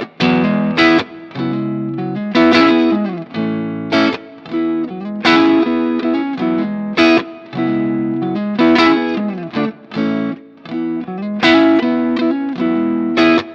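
Electric guitar played through a BSM Starbreaker tube power amp simulator pedal into a Marshall Plexi amp: overdriven chords struck and left to ring, in short phrases with brief gaps between them.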